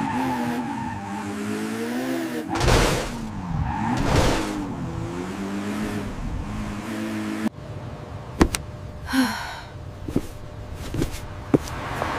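Vehicle sound effect: an engine revving up and down, with two loud whooshes, cutting off suddenly about seven and a half seconds in. After that come scattered sharp clicks and knocks.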